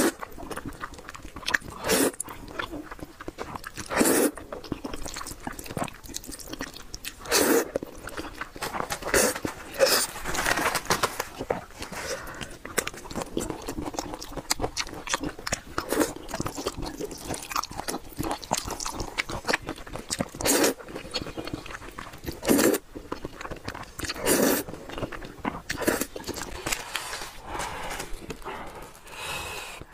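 Close-miked eating of spicy instant noodles: loud slurps every couple of seconds, with wet chewing in between.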